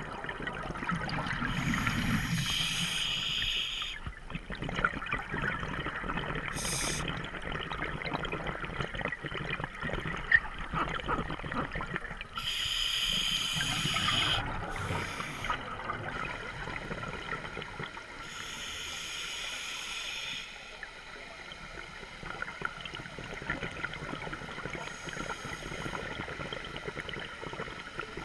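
Scuba diver breathing through a regulator underwater: a hiss with bubbling on each breath, three long ones and a few shorter ones several seconds apart, over a steady faint crackling.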